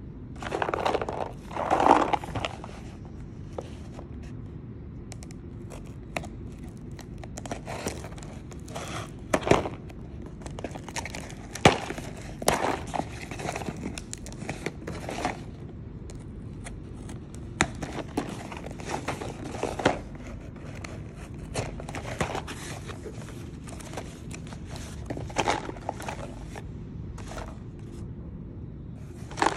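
Cardboard shipping box being opened by hand: packing tape torn and the flaps bent back and scraped, making irregular rustles, crinkles and sharp clicks. Near the end, small plastic miniature bottles are handled as they are picked out of the box.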